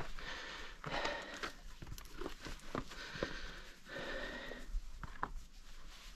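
A climber breathing hard, with several audible hissing breaths, and scattered sharp clicks and knocks of boots and hands on rock during a quick descent of a rocky gully.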